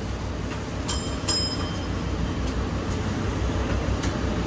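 Steady low rumble inside a heritage-style wooden streetcar. About a second in come two sharp metallic clinks, close together, each ringing briefly.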